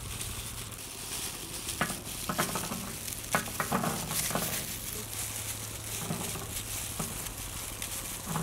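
Gloved hands breaking apart a pomegranate and shaking the arils out onto an aluminium tray: irregular crackling and light clicks as the rind tears and the seeds patter onto the metal, with plastic gloves crinkling.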